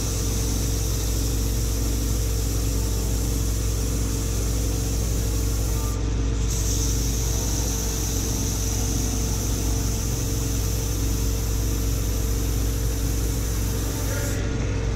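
Ammco 4000 brake lathe running steadily, its motor humming as it turns a brake rotor.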